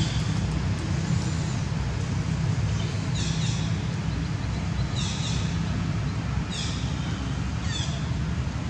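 Steady low rumble of outdoor background noise, with short high chirps that fall in pitch, four times in the latter half.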